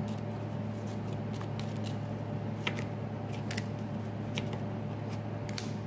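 Tarot cards being handled: a few light, sharp clicks spread out over several seconds, over a steady low electrical hum.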